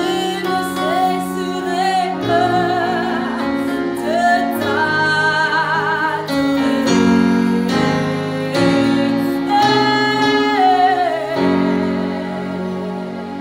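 A woman singing a gospel worship song, holding notes with vibrato, over sustained chords played on an electronic keyboard.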